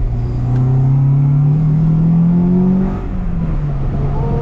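Honda Integra Type R's four-cylinder VTEC engine accelerating hard, its note climbing for about three seconds, dropping sharply at a gear change about three seconds in, then pulling again.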